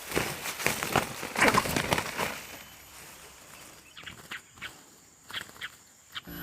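Rustling footsteps for about two and a half seconds, then a few scattered light clicks and taps.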